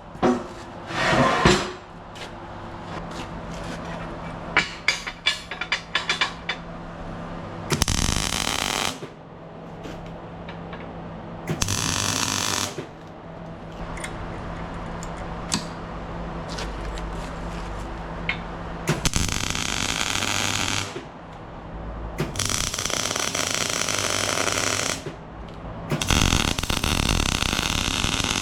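A power tool run in several bursts of one to three seconds over a steady machine hum, with a quick series of clicks or taps about five seconds in.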